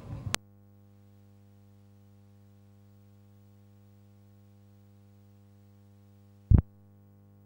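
Faint steady electrical mains hum, starting with a click as the other sound cuts off just after the start. One loud short pop comes about six and a half seconds in.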